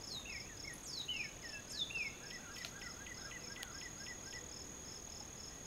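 Summer evening insect chorus: a steady high-pitched insect trill with crickets chirping regularly, about four chirps a second. Birds call over it with short downward-sliding whistles in the first two seconds, then a quick series of short notes.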